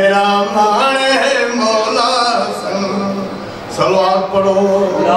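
A man reciting in a sung, chanting style into a microphone, holding long notes, with a short pause about three and a half seconds in.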